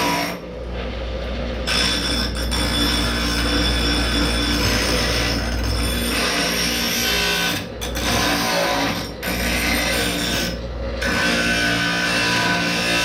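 Angle grinder with a multi-purpose grinding wheel cutting and grinding steel, running steadily with a few short breaks where the wheel comes off the work.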